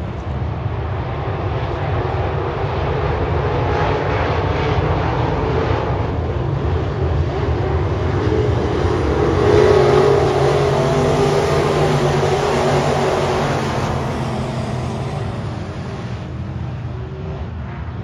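A pack of IMCA dirt-track modified race cars running their V8 engines around the oval. The blended engine noise swells to its loudest about halfway through as the pack goes by, then fades.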